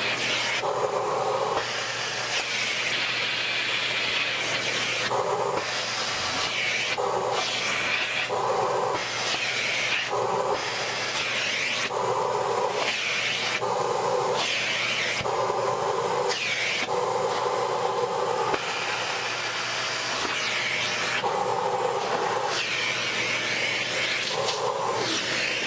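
Dyson vacuum cleaner running steadily as its nozzle is worked over a cat's coat. The sound of the suction keeps shifting back and forth between a lower rush and a higher hiss, about once a second.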